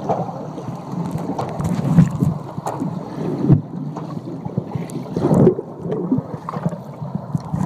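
Wave-pool water sloshing and splashing close to a phone's microphone, with several louder splashes as waves surge past.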